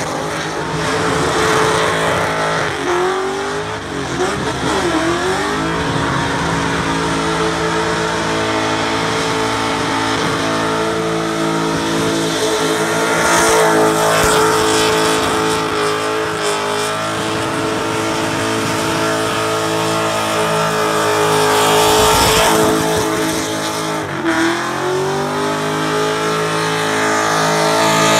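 Holden Commodore wagon's engine held at high revs through a burnout, with the rear tyres spinning and squealing on the pad. The revs dip and climb back a few seconds in and again near the end.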